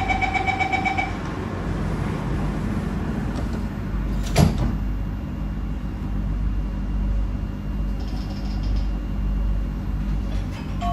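Aboard an MRT train: a rapid pulsing warning beep for about a second, then a single sharp thud about four seconds in, over the train's steady low hum. This fits the doors-closing warning and the doors slamming shut. A short chime of descending notes begins right at the end.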